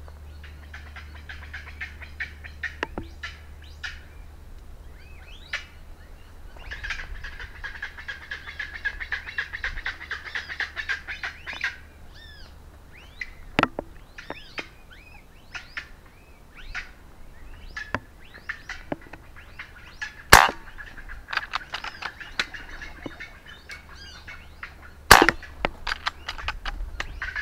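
A flock of chachalacas calling, many birds at once in overlapping bouts that swell and fade. Two sharp cracks of air-rifle shots about five seconds apart cut through, the second near the end.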